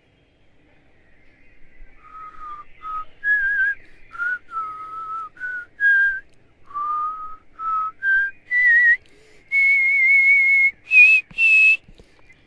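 A person whistling a slow tune, one clear note at a time, stepping up and down in pitch. Near the end comes a long wavering held note, then two higher short notes.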